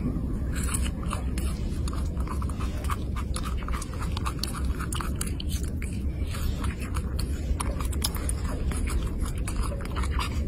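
A baby macaque chewing and nibbling on a small piece of food: many quick, irregular mouth clicks over a steady low rumble.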